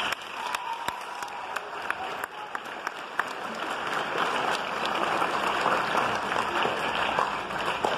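A large audience applauding in an auditorium, dense clapping that swells steadily louder.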